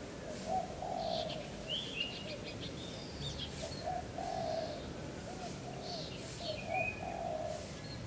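Birds calling: a low, short cooing note repeated in runs, with higher chirps and a brief rapid twitter about two seconds in.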